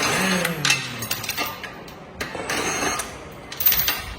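Wheel nuts on a tractor wheel being worked loose with a tool, heard as three bursts of metallic mechanical noise, the first with a falling tone.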